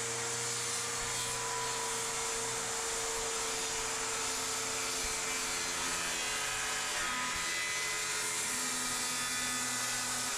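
Electric power tool motor running steadily at one speed with a whine, starting to wind down in pitch at the very end.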